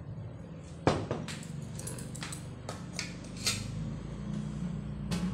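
Ceramic bowl being handled and set down on a table: one sharp knock about a second in, then several lighter clinks and taps, over a steady low hum.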